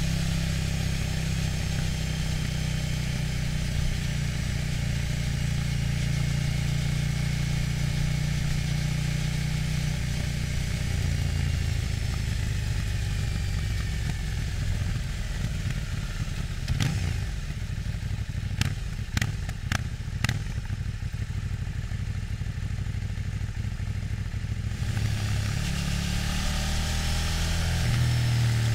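KTM 790 Duke's LC8c parallel-twin engine with its stock exhaust, heard onboard while riding. The engine note eases off for several seconds in the middle, with a handful of sharp clicks, then picks up and climbs again near the end.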